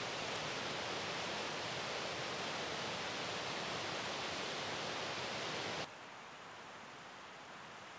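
River water rushing over rapids, a steady rush that cuts off abruptly about six seconds in, leaving a quieter steady hiss.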